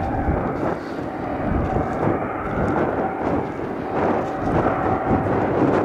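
Boeing 737-800's CFM56-7B jet engines running at taxi idle: a steady rumble with a faint, intermittent whine.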